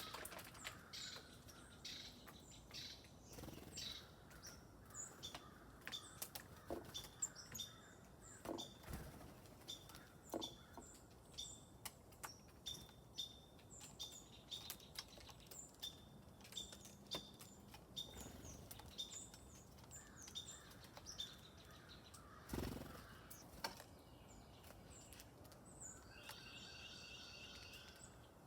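Small songbirds chirping repeatedly in short, faint notes, with a dull thump about two-thirds of the way through and a longer, layered call near the end.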